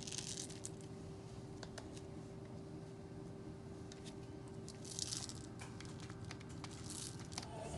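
Dry rice rattling inside a bottle as a baby shakes it: short swishing bursts at the start, about five seconds in and again near the end, with small ticks of grains between them.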